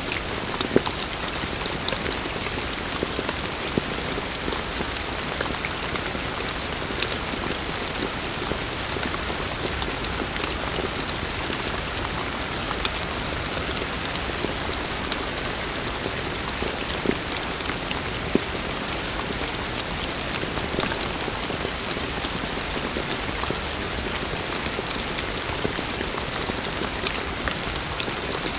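Heavy rain falling steadily on a surface, a dense even hiss with scattered louder individual drop hits.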